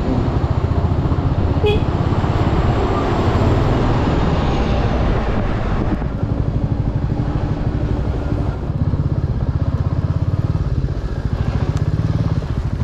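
Motorcycle engine running as the bike rides slowly, its exhaust a fast, even pulse. A rushing noise lies over it in the first half and drops away about six seconds in.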